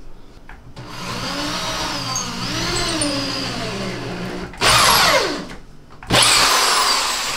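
Corded electric drill drilling into the wall, its motor speed wavering under the trigger. Near the end it runs louder at full speed twice, about a second and a half apart, each time winding down.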